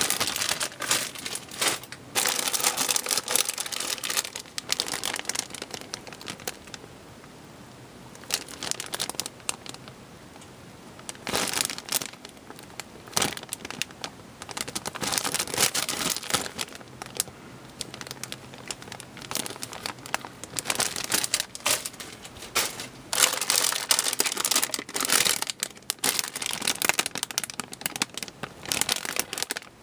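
Clear plastic bags crinkling as bagged plastic model-kit runners are handled and turned over, in irregular bouts with short pauses between them.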